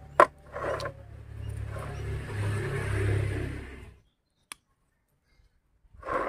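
Bonsai shears snip a branch once with a sharp click. Rustling and rumbling handling noise follows as the branches are worked by hand, then cuts off suddenly about four seconds in.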